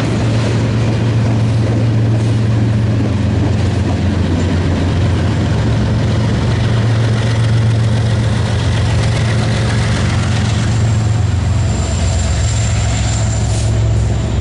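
Two Norfolk Southern diesel-electric locomotives, mid-train distributed power units, passing close below with their engines running in a steady low drone over the running noise of the freight train. The drone changes about eleven seconds in as the units move away.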